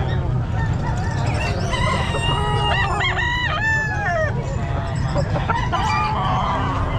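A gamecock rooster crows once, starting about two seconds in and lasting about two seconds, over a steady low rumble. Fainter fowl calls follow near the end.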